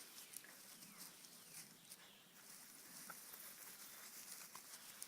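Near silence: faint patter and a few soft clicks of puppies moving about.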